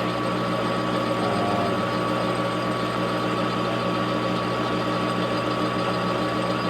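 Grizzly metal lathe running steadily, its spindle turning at 360 RPM with the threading feed moving the carriage along the rack. It makes an even machine hum with a constant whine and does not vary.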